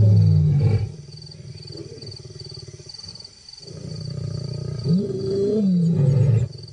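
Male lions growling and snarling: a loud low growl at the start, a quieter rumble, then a longer growl that rises and falls in pitch and cuts off near the end.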